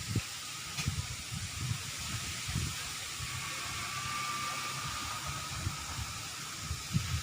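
Strong wind buffeting the microphone in uneven gusts of low rumbling, over a steady hiss of wind.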